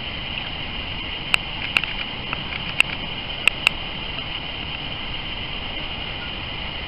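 Steady lakeshore background noise, a low rumble under a constant hiss, with a handful of sharp clicks between about one and four seconds in.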